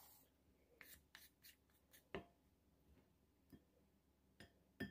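Faint, scattered scrapes and light taps of wooden spoons against a glass bowl as thick gochujang is worked into a chili-flake sauce.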